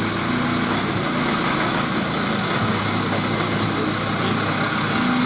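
A heavy vehicle engine running steadily at idle, a constant low hum with a noisy rumble over it.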